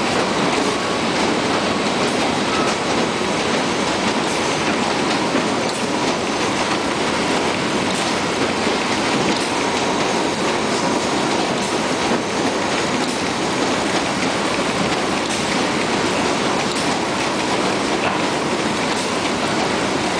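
Tri-Steel felt potato dryer table running loaded: a steady, dense clatter of potatoes rolling and knocking together as they are carried across the table, with scattered small clicks and a faint steady whine from the machine.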